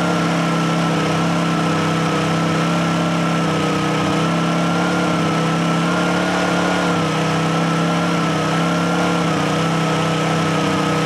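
Honda portable petrol generators running steadily with no load, a constant engine hum with a faint, slightly wavering higher whine.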